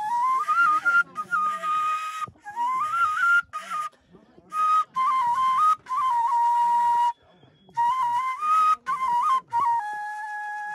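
Background music: a solo flute playing a melody in short phrases with brief breaks, ending on a long held note.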